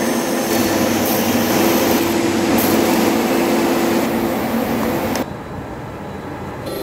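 Steady, loud mechanical running noise with a low hum, which drops and turns duller about five seconds in.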